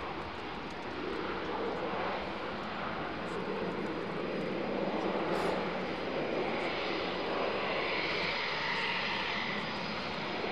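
Panavia Tornado's twin Turbo-Union RB199 turbofans running as the jet rolls along the runway: a steady jet roar, with a higher whine building over the last few seconds.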